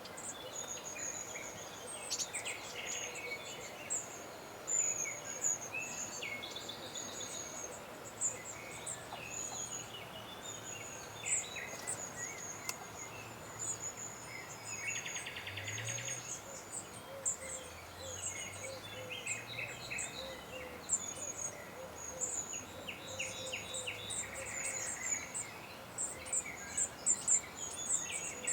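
Several woodland birds singing and calling together: a continuous run of thin, very high notes, with lower chirps and a couple of short rapid trills.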